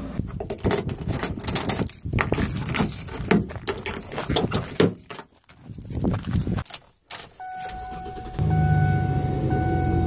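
Keys jangling with clicks and rustles as a car door is opened and someone climbs in. A repeating warning chime then starts, and about eight seconds in a low engine sound begins under it as the car is started.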